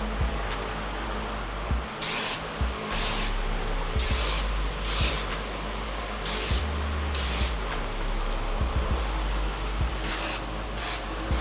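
Aerosol spray can of gloss black paint (a high-output "turbo can") hissing in short bursts, about nine blasts of a third to half a second each, laying a first coat on an engine block.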